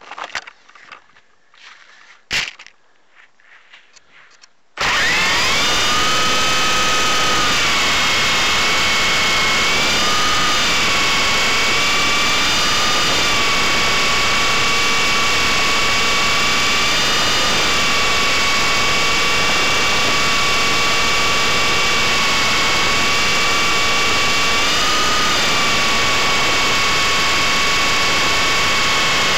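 Blade 120 SR micro RC helicopter's electric motor and rotor, heard from a camera mounted on the helicopter. It spools up with a rising whine about five seconds in, then runs on in a steady high whine whose pitch dips and rises slightly a few times as the throttle changes. Before it starts there are a few light knocks and rustles.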